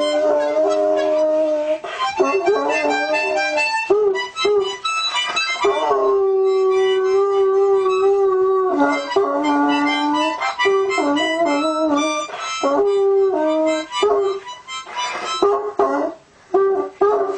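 Harmonica playing held notes and chords while a dog howls and whimpers along with it, its voice bending up and down in pitch.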